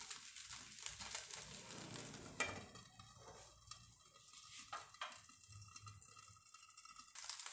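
Neer dosa batter sizzling in a hot nonstick pan on a gas burner. About two and a half seconds in, a steel lid is set on the pan and the sizzle drops to a muffled hiss, with a few light clicks. Near the end the full sizzle returns as the lid comes off.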